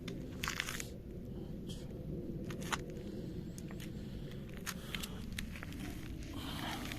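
Scattered crunches and rustles, as of footsteps on dry ground, coming at uneven intervals over a steady low rumble.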